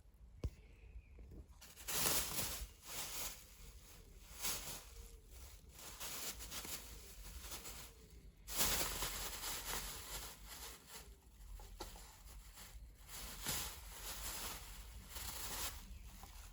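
Thin plastic bag crinkling and rustling in irregular bursts as a kitten plays with it, loudest about two seconds in and again near the middle.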